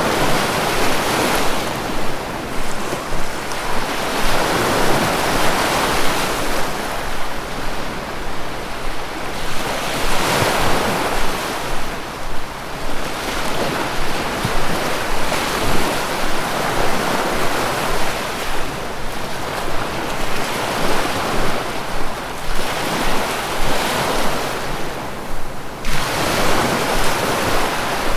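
Sea waves breaking and washing on the shore: continuous surf hiss that swells with each wave every few seconds and ebbs between them, with some wind.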